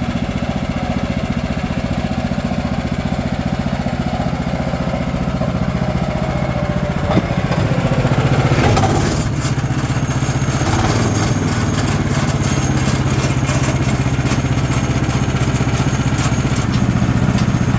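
Sawmill engine running as it warms up. There is a sharp click about seven seconds in, and the engine speed changes a few times in the second half.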